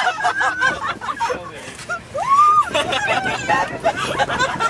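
Excited high-pitched shrieks, squeals and snickering laughter from several people, with one long rising squeal about two seconds in.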